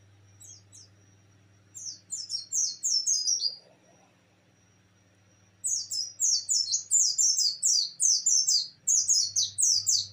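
Caged white-eye (pleci) singing in rapid 'nembak' bursts of quick, high, falling chirps. Two short notes come first, then a run of chirps. After a pause of about two seconds comes a longer, louder run through the second half.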